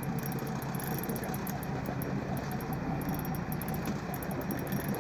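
Boat engine running steadily at low revs, a constant low hum under a haze of wash, with faint irregular high-pitched ticks over it.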